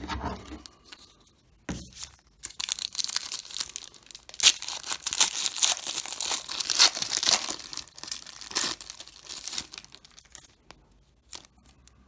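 A baseball card pack's wrapper being torn open and crinkled. A few short handling noises come first, then several seconds of dense tearing and crinkling.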